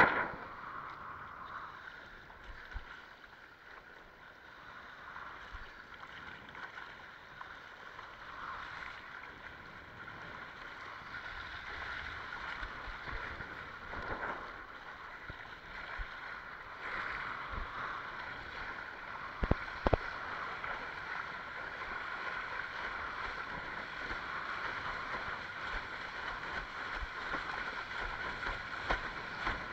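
Water rushing and splashing along a windsurf longboard's hull as it sails, mixed with wind on the microphone, growing slightly louder. A few sharp knocks stand out, two of them close together about twenty seconds in.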